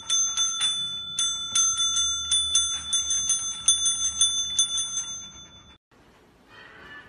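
Counter service bell (desk call bell) slapped rapidly and repeatedly by a dog's paw, about three dings a second, each ding ringing on into the next. The dinging stops about six seconds in, and faint music follows near the end.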